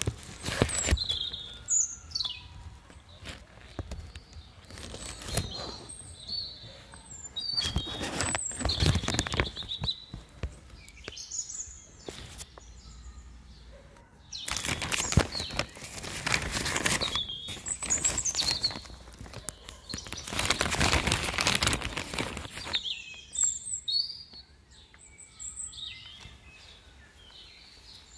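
Small birds chirping in short high calls, broken several times by bursts of rustling noise lasting a second or two.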